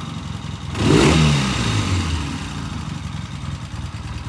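Vintage Triumph motorcycle engine idling, with one quick throttle blip about a second in that rises and then falls back to a steady idle.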